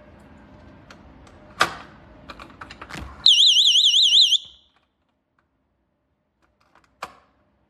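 A GE personal security window and door alarm sounds a loud, rapidly warbling high-pitched electronic tone for about a second. Clicks and knocks of handling come before it, and a sharp click follows near the end.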